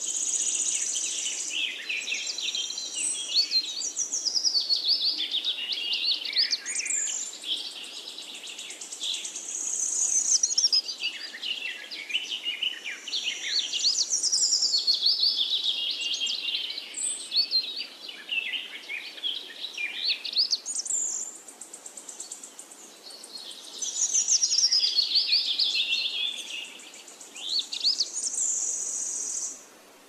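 Wild birds singing, a busy run of quick rising and falling whistled phrases and trills in bursts with short pauses, over a faint background hiss; it drops away abruptly at the very end.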